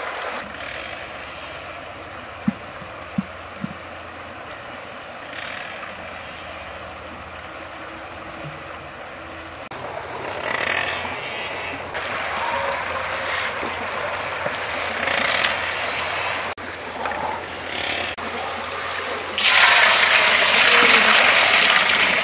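Steady rush of a shallow river with three sharp knocks, then liquid trickling and pouring into a large metal wok. Near the end comes a loud splashing pour as a bowl of raw eggs is tipped into the wok.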